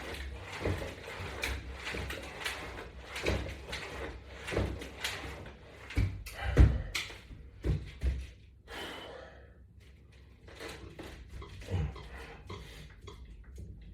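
Exercise hardware knocking and clunking in time with repetitions, about one knock every second and a half, then a quieter stretch a little past halfway before lighter clicks resume. The clunks fit the resistance-band attachment system shifting under load with each pull.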